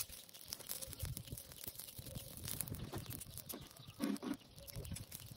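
Dry brush and twigs crackling and rustling as they burn around a tin and are poked with a branch, heard as many small irregular snaps. About four seconds in comes a short, low, grunt-like vocal sound.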